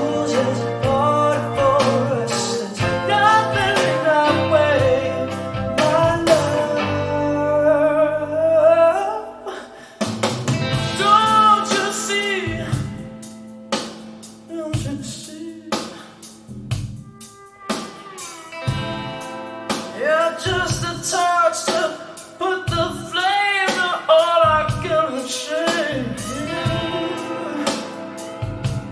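Rock/folk song with a singer over guitar, dropping to a quieter, sparser passage partway through before building again.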